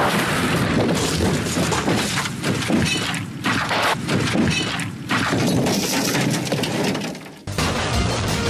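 A car rolling over and over, with repeated crunching impacts of its metal body and shattering glass. The crash noise cuts off sharply near the end.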